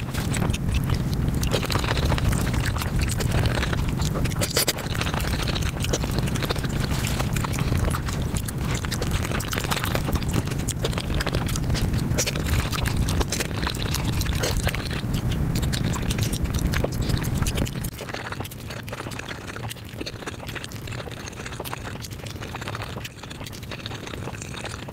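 Close-miked eating sounds sped up five times: a fast, dense patter of chewing, biting and wet mouth noises from chicken and flatbread. It turns quieter about three-quarters of the way through.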